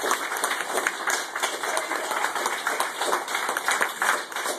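Applause: the audience and the performers clapping their hands, a dense irregular patter that holds steady throughout.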